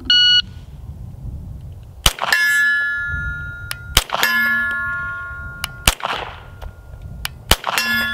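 A shot timer beeps once, then a compact 9mm pistol fires four shots about two seconds apart at a steel IPSC target 50 yards off. Three hits make the steel ring with a clang a moment after the shot; the third shot is a miss and brings no ring.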